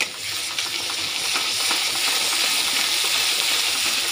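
Masala spice paste and browned onions sizzling loudly in hot mustard oil, stirred with a metal spatula that scrapes lightly against the pan. The sizzle jumps up right at the start as the masalas go into the oil, then holds steady.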